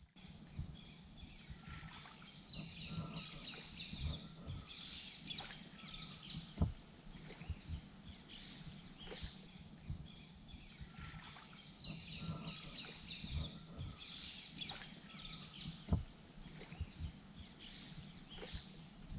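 Birds chirping and twittering in the trees, with short whistled notes and bursts of rapid twittering recurring throughout. Occasional sharp knocks from the canoe being paddled, two of them louder than the rest.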